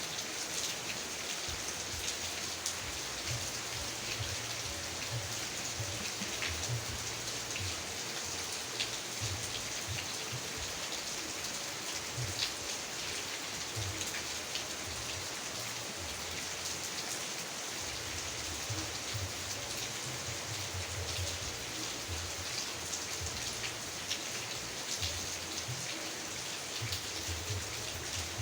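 Steady rain falling, with many separate drops striking close by as sharp ticks and irregular dull low thuds.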